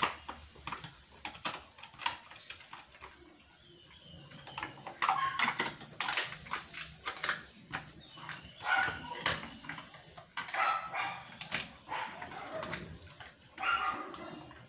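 A Rottweiler gnawing and crunching mutton bones, with many sharp cracks and clicks of bone between its teeth that come thicker from about five seconds in.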